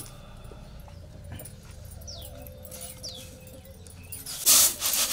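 Quiet outdoor background with two faint high chirps, like small birds, about two and three seconds in. About four and a half seconds in comes a sudden loud, noisy rustling burst.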